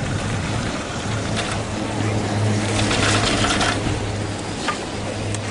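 Wind noise on the microphone while riding a chairlift, over a steady low hum, with a louder stretch of wind about three seconds in.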